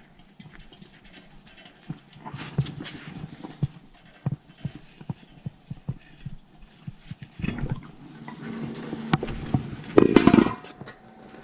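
Scattered clicks and knocks of hands and tools working on boiler piping, with a louder burst of clattering noise near the end.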